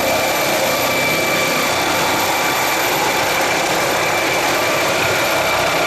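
Helicopter engine sound, likely an added sound effect for a toy helicopter: a loud, steady, dense noise with a thin high whine running through it.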